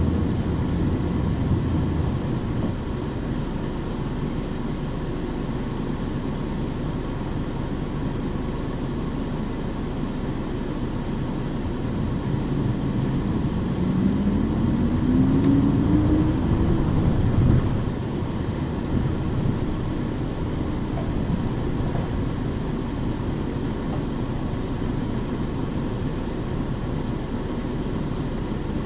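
Nissan Diesel KC-UA460HSN city bus running, a steady engine and road rumble. About halfway through it pulls harder with a rising whine and gets louder, then drops back suddenly after about three and a half seconds.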